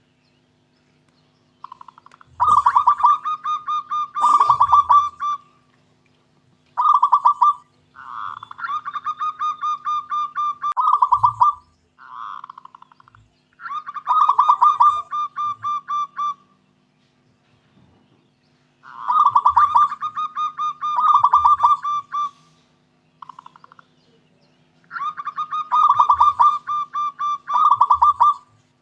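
Zebra dove (perkutut) cooing in rolling phrases of rapid pulsed notes, each phrase lasting two to three seconds, repeated about five times with short pauses and a few brief clipped notes between.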